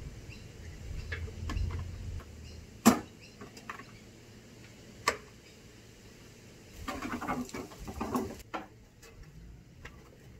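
Plastic fairing panels of a Suzuki V-Strom motorcycle being worked loose and lifted off: a few sharp clicks and knocks, the loudest about three seconds in, with light rattling near the end.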